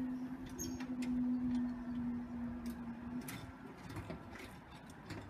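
Level crossing warning alarm sounding one steady tone, which cuts off a little over three seconds in, with a few faint clicks.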